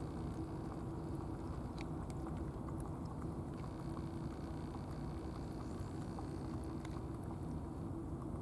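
A domestic cat lapping milk from a plastic dish: faint, quick, irregular wet clicks of its tongue over a steady low rumble.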